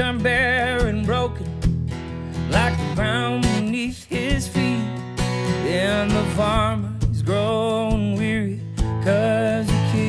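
Man singing a country song with a wavering vibrato on long notes, accompanying himself on a strummed acoustic guitar.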